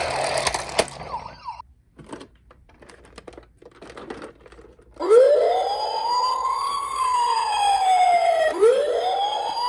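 Toy ambulance's electronic siren sounding a slow wail that rises and falls in pitch, starting about halfway through and running twice through its cycle. Before it a rattling noise stops about a second in, followed by a few light clicks.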